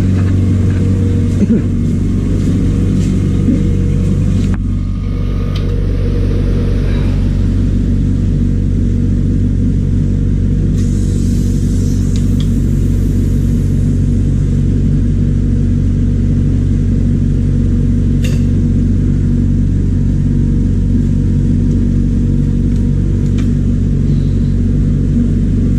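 Steady low hum of a running electric motor in refrigeration repair gear. A short hiss comes a little before halfway, as a refrigerant gauge manifold valve is turned, and a single sharp click follows later.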